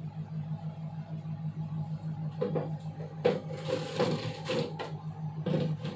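Kitchen handling sounds: a few soft taps and rustles, from about two and a half seconds in, as grated mozzarella is sprinkled by hand onto a pizza in a steel plate, over a steady low hum.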